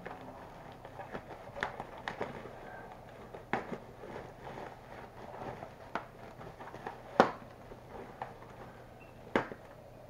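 Plastic packaging bag rustling and crinkling as it is pulled off a monitor stand, with several sharp clicks and knocks from the parts and packaging being handled. The loudest knock comes about seven seconds in, another near the end.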